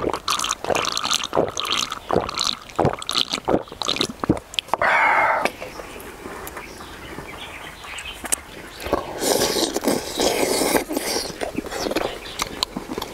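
Eating and drinking sounds: gulping from a drink can, then many small clicks and taps of chopsticks and chewing. A short burst of noise comes about five seconds in, and a longer one between about nine and eleven seconds.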